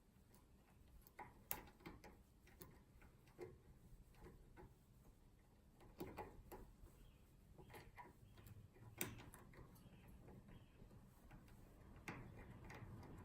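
Faint, irregular metallic clicks and light scraping of homemade picking tools working the levers inside a Squire Defiant six-lever padlock, with a few sharper clicks spread through it.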